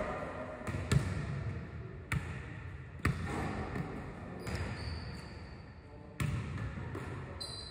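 Basketballs bouncing on a hardwood gym floor: a few separate, irregularly spaced bounces that echo in the large hall.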